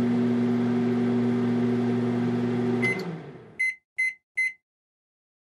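A steady electric motor hum cuts off with a click about three seconds in, followed by three short high electronic beeps, the signal of an appliance finishing its cycle.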